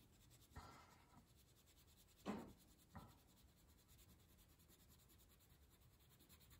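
Faint scratching of a wax crayon colouring on paper, mostly near silence, with a few short soft strokes, the loudest about two seconds in.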